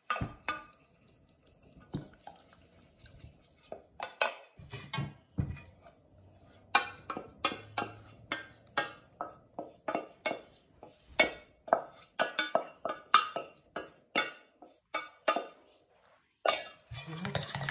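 A wooden spoon knocking and scraping against a stainless steel saucepan in a quick run of taps and clinks, about two a second, as thick agar-agar mixture is scraped out of the pan into a steel bowl.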